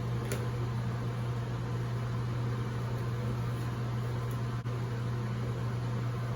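Steady low machine hum with an even hiss, like a running fan or appliance.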